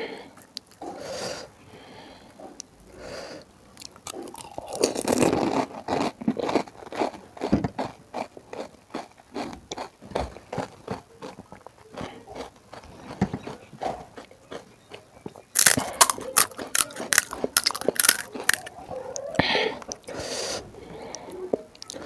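Close-miked crunching and chewing of pani puri: crisp hollow puri shells cracking between the teeth, with a dense run of loud crunches a little past the middle.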